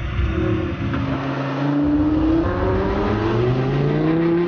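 Lamborghini Huracán's V10 engine accelerating hard, its pitch rising, dropping at an upshift a little past halfway, then climbing again.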